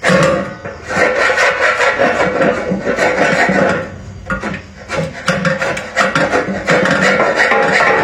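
Continuous rough scraping and rasping with many quick strokes, broken by short pauses about four and five seconds in.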